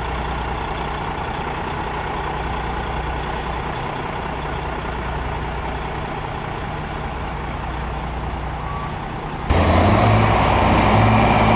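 Diesel engine of a Cat 980 wheel loader running steadily. About nine and a half seconds in the sound cuts abruptly to a louder, fuller engine sound.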